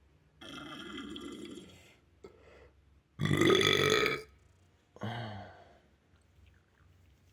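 A boy burping several times after drinking water: a first burp lasting over a second, then the loudest, about a second long, and a shorter one that drops in pitch.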